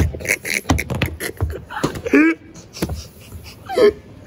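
A man laughing in short breathy bursts and broken vocal sounds, with a few dull thumps.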